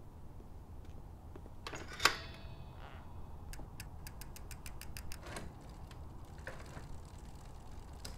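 A bicycle's rear freewheel ticking in a quick, even run as the bike rolls away. It comes after a single sharp metallic click with a brief ring about two seconds in.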